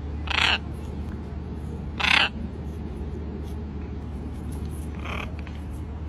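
Green-winged macaw squawking: two loud, harsh squawks, one just after the start and one about two seconds in, then a fainter one about five seconds in.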